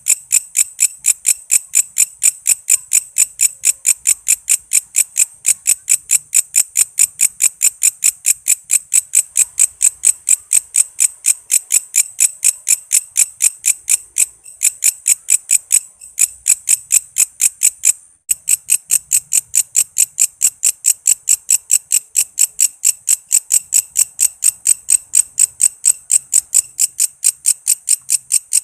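Walang kece katydid calling: a loud, even train of sharp, high chirping pulses, about five a second. The pulses break off briefly a few times about halfway through, then resume.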